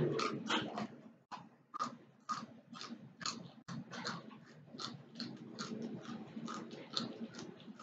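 A person chewing crunchy food close to the microphone: a steady run of crisp crunches, about three a second.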